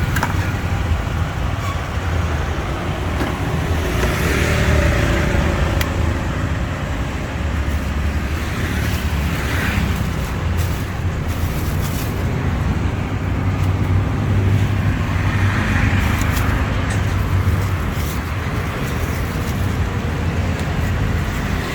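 Steady street traffic noise: the rumble of passing vehicles, swelling a few times as vehicles go by.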